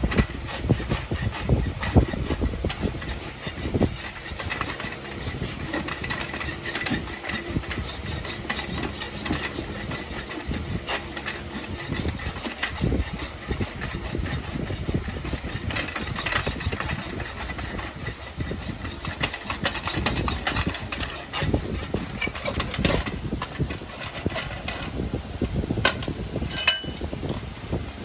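Farrier's hoof rasp filing a horse's hoof, a run of repeated scraping strokes.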